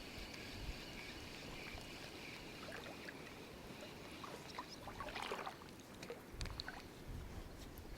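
Faint water sounds at a river's edge: a low steady wash with a few small clicks and a brief splash about five seconds in.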